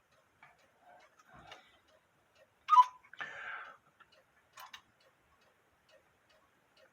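Quarter-hour cuckoo clock giving one two-note cuckoo call, high then lower, about three seconds in. A short whir of the mechanism and a click follow, with the movement ticking faintly.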